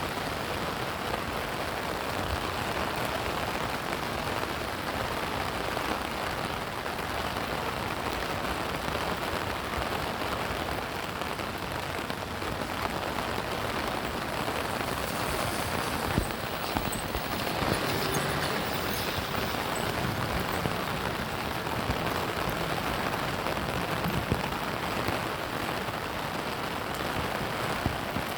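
Steady rain falling, an even hiss with a few sharper drip sounds scattered through it.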